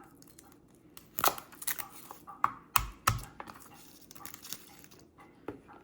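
Dry, papery garlic skin crackling and tearing as cloves are peeled by hand, in a scatter of small sharp clicks. Two dull knocks come about three seconds in.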